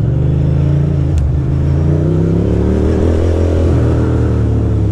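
2006 Ducati Monster 620's air-cooled V-twin engine under way, its pitch rising for about two seconds as it accelerates, then dropping back as the throttle eases. A brief click about a second in.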